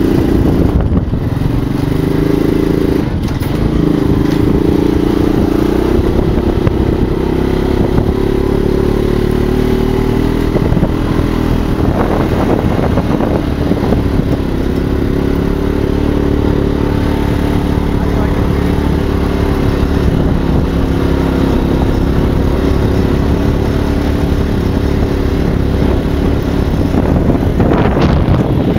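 ATV engine running as the quad is ridden along a dirt trail, its note shifting up and down with the throttle.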